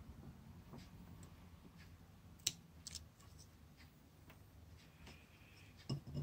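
Small metal scissors snipping nerve plant stems: a few faint clicks, the sharpest about two and a half seconds in and another half a second later.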